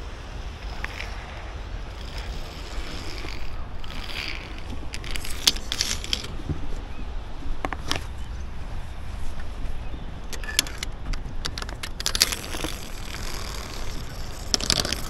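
Wind rumbling on the microphone, with scattered sharp clicks and metallic clinks of climbing gear, the zip-line trolley and carabiners. The clinks come in clusters, the last and loudest just before the end.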